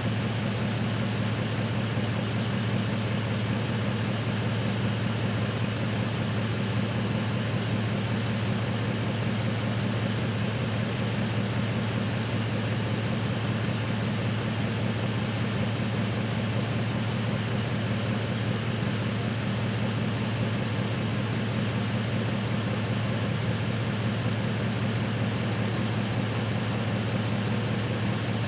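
Truck engine idling steadily, a low, even hum with no change in speed.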